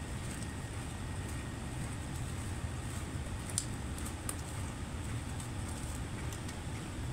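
Steady low background rumble, with a few faint light clicks.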